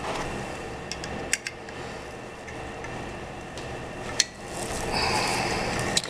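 Handling noise from an angle grinder with a thin cutting wheel fitted: a few sharp clicks and light knocks as the tool is moved and picked up, the grinder not running.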